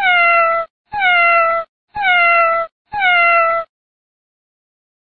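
A cat's meow, the same drawn-out call repeated four times about a second apart, each dipping slightly in pitch and then holding.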